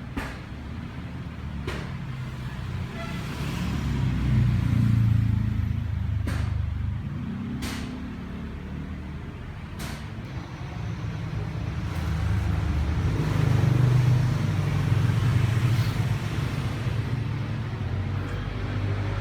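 Low rumble of motor vehicles, swelling twice as it grows louder and fades, with a few sharp clicks.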